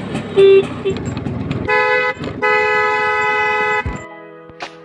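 Old Bajaj Chetak scooter's two-stroke engine running with a short horn beep about half a second in, then a long, loud two-tone horn blast of about two seconds, broken once by a short gap. It cuts off sharply shortly before the end.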